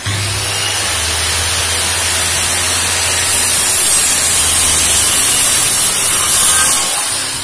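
Handheld electric circular saw running and cutting along a jig through 2.4 cm plywood, made of two 12 mm sheets glued together. It is a loud, steady whine and rasp that fades near the end.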